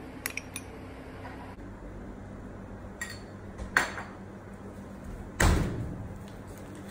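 A whole onion struck by hand on a stone countertop to break it open: one heavy thud about five and a half seconds in, after a sharper knock just before the fourth second. A few light clinks of a spoon on a ceramic bowl come at the start.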